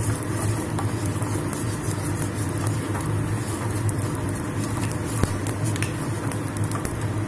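Cumin seeds sizzling in hot ghee in a nonstick frying pan, a steady hiss with scattered small pops as the seeds crackle, while a wooden spatula stirs them. A steady low hum runs underneath.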